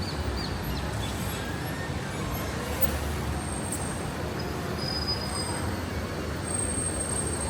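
City street ambience: a steady low traffic rumble under a general wash of street noise, with a few brief high, thin squeals around the middle and near the end.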